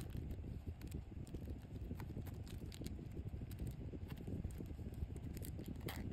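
Close-up handling sounds of a small plush zip pouch being packed with miniature plastic stationery: scattered light clicks and taps over a dense low rustle, with a brighter scrape near the end as the pouch is zipped shut.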